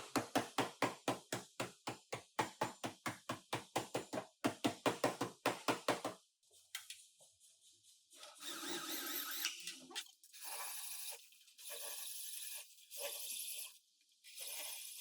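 Rapid hammer blows on car body sheet metal, about five a second for roughly six seconds with two short breaks, as the damaged panel is worked. After a pause come several bursts of harsh, hissing noise, each a second or so long, from shop work on the car.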